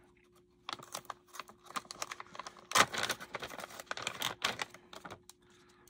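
A plastic retail bag of soft-plastic swimbaits crinkling and rustling as it is handled: a quick run of crackles and small clicks, with one sharper crackle about three seconds in.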